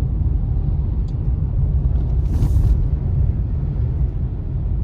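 Steady low rumble of a car driving on a wet road, heard from inside the cabin. About halfway through there is a brief hiss of tyre spray as an oncoming vehicle passes.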